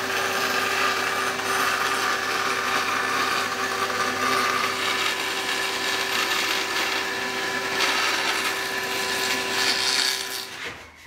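Bandsaw running and cutting a thin wooden board: a steady motor hum under the hiss of the blade in the wood. It stops shortly before the end.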